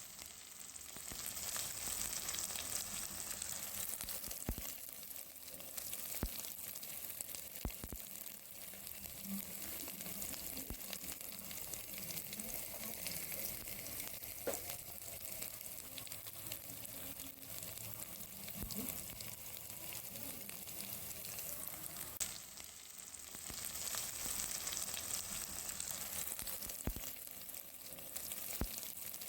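Food sizzling and frying in hot oil in a pan while it is stirred, with occasional sharp clicks. The sizzle swells twice, briefly dipping in between.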